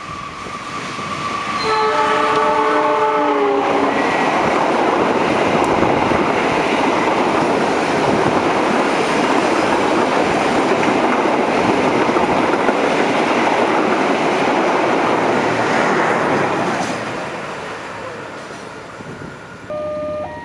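A diesel-hauled express passenger train passing through a station at speed. The locomotive sounds a chord horn for about two seconds as it comes in, its pitch dropping slightly. Then the engine and the coaches' wheels rumble and clatter past loudly for about fourteen seconds and fade away.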